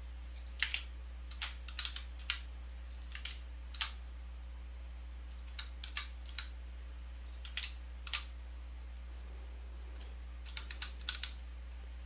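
Computer keyboard typing: scattered keystrokes in short clusters with pauses between, over a steady low hum.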